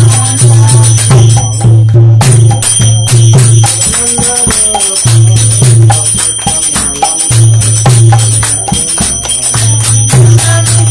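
Devotional music with jingling percussion and a steady beat.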